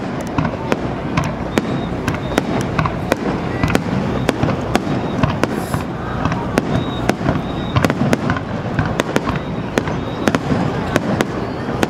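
Fireworks going off: many sharp, irregular bangs and crackles, several a second, over a continuous low background din.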